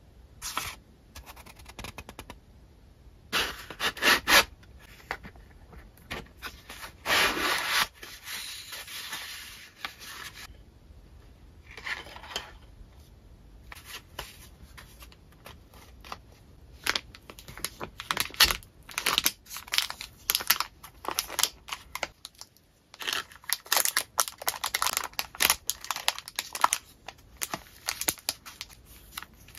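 Hands handling paper and cellophane-wrapped stationery packs, making irregular rustling, rubbing and crinkling with a few light knocks as items are set down. A longer continuous rub comes about seven to ten seconds in.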